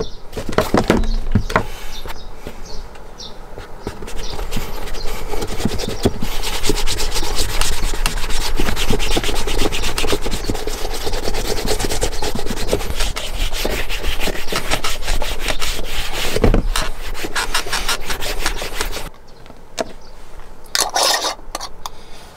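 Shoe cream being rubbed into a leather boot's upper by hand, fast back-and-forth rubbing strokes that stop a few seconds before the end.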